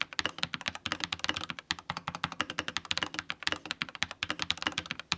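Typing a full sentence on a TECWARE Phantom+ Elite mechanical keyboard with pre-lubed Wraith switches: rapid, unbroken keystrokes, many clicks a second.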